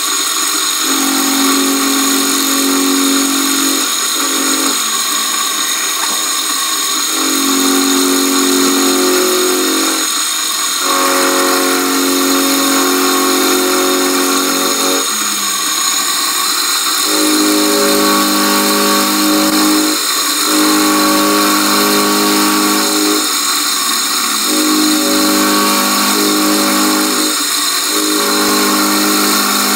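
Milling machine running with an end mill facing a cast C-clamp. A steady high motor whine runs throughout, with a pitched drone that comes and goes in stretches of a few seconds as the cutter engages the metal on each pass.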